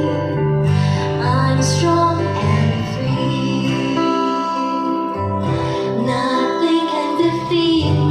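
Women singing a slow song with instrumental accompaniment that includes guitar-like plucked strings and held bass notes.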